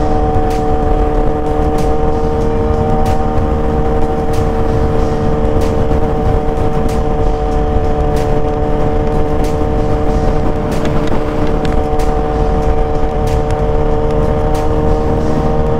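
Suzuki GSX-R sport bike's inline-four engine running at steady highway cruising revs, a single unchanging whine that holds its pitch throughout, over a heavy low rumble of wind and road noise on the rider's microphone.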